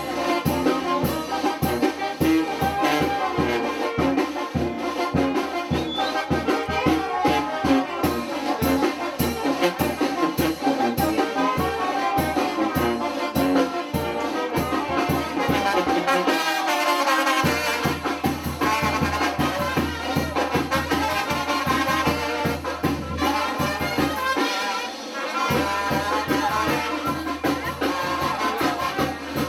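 Brass band playing dance music with a steady beat. The low end drops out briefly twice in the second half.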